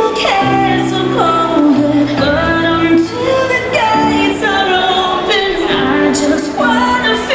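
Pop song with a singing voice, played loud.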